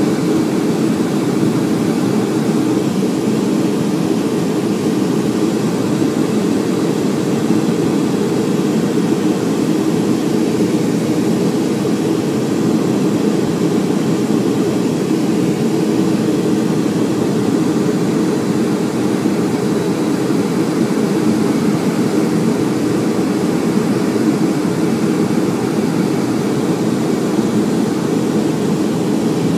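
Steady cabin noise inside a Boeing 757-200 airliner descending to land: a low, even drone of its turbofan engines and the airflow over the fuselage, heard from a window seat beside the wing, with no change in pitch or level.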